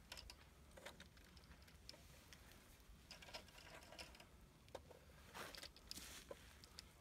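Near silence, with only faint scattered rustles and small clicks, a few of them clustered near the end.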